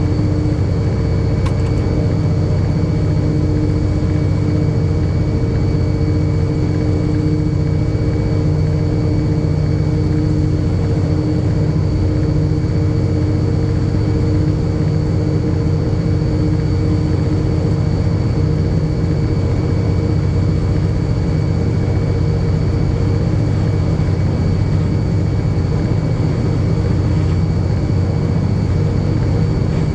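Diesel-electric bank engine locomotive running steadily, a deep engine drone with a constant whine over it.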